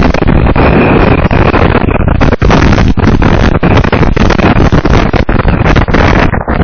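Strong wind buffeting the nest camera's microphone: a loud, continuous rushing rumble with gusty flutter and brief drops, twice.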